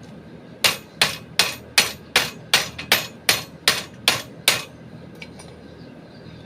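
Hammer striking eleven times in a steady rhythm, about two and a half blows a second, each blow ringing briefly.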